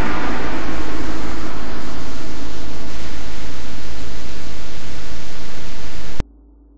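Loud, steady rushing noise, a spacecraft engine sound effect for the Lego ship as it departs. It cuts off suddenly about six seconds in.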